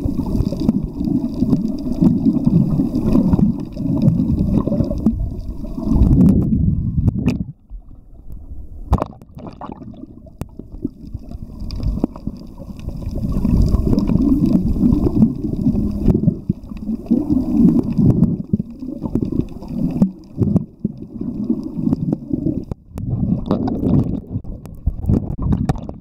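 Muffled underwater rumble and gurgling of water moving around a submerged camera, with a quieter stretch about a third of the way in broken by a few sharp clicks.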